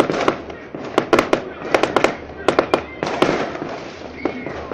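Aerial fireworks exploding in quick, irregular bangs, several a second, over a steady crackle.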